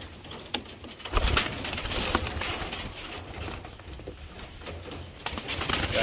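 Pigeons cooing, with wing flaps and scattered sharp clicks as the birds move about in the aviary, and a loud thump about a second in.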